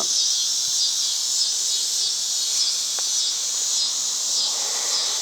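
Steady high-pitched chorus of insects, with a faint regular pulsing.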